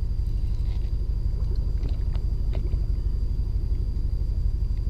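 Steady low rumble of wind buffeting the microphone of a body-mounted camera, with a few faint ticks about two seconds in.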